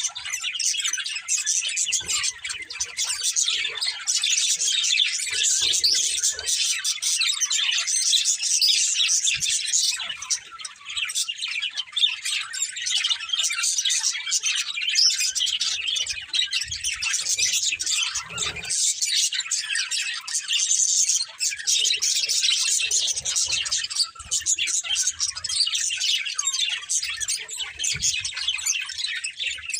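Several budgerigars chirping and chattering continuously, with many overlapping short, high chirps.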